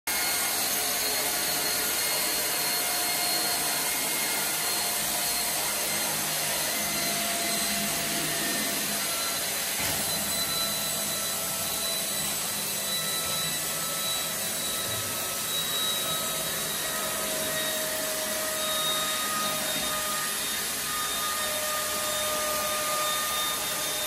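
Homemade robot vacuum cleaner running, its three-phase suction motor giving a steady rushing whine whose pitch wavers slightly as the robot moves about.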